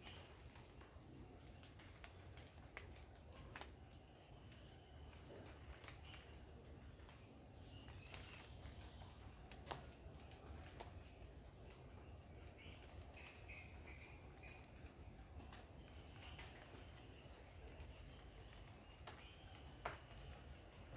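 Faint garden ambience: a steady high insect drone, a short high double chirp repeated every few seconds, and scattered small clicks and scratches from palm squirrels feeding and climbing, with a sharper click about halfway and another near the end.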